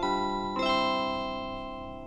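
Japanese train's onboard announcement chime, a bell-like electronic melody ending on two chords about half a second apart that ring on and fade.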